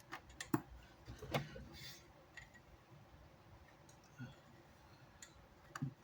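Scattered light clicks and taps from small parts and hand tools being handled during a speaker repair, the loudest about half a second and a second and a half in, with a short scrape near two seconds and a few softer taps later.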